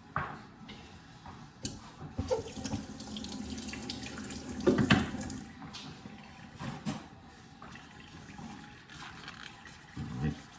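Water running from a kitchen tap for about three seconds, with a few short knocks and clatters before and after it.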